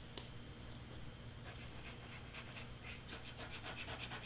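Precision tip of a glue bottle rubbing along cardstock as glue is applied: a quick run of short strokes, several a second, starting about a second and a half in.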